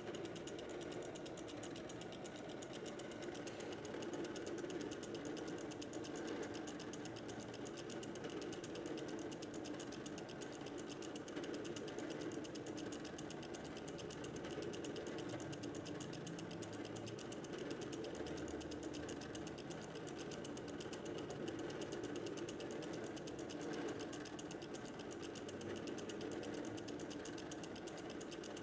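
Homemade punch-card computer running a bubble-sort program: its mechanism makes a steady, rapid mechanical clicking.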